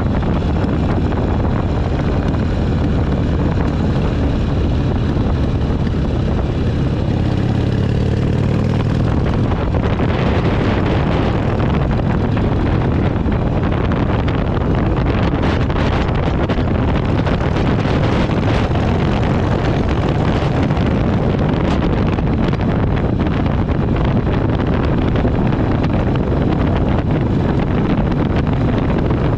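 Harley-Davidson V-twin motorcycle engine running at road speed, with wind buffeting the microphone. The engine's pitch shifts about eight seconds in, and after that the wind noise grows and covers much of the engine.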